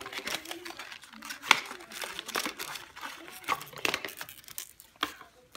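Clear plastic packaging bags crinkling and rustling as they are handled, with a run of sharp crackles. The loudest crackle comes about one and a half seconds in.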